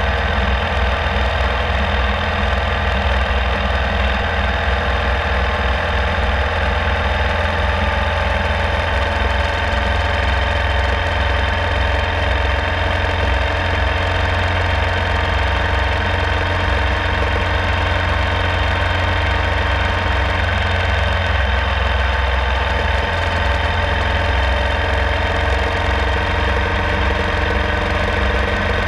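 Ural Classic sidecar motorcycle's air-cooled boxer-twin engine running steadily while riding at an even speed.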